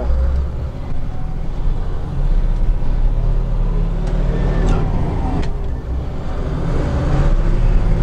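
Diesel engine of a 2000 International Blue Bird school bus pulling away under load, heard from the cab, with a gear change through its six-speed Spicer manual transmission partway through.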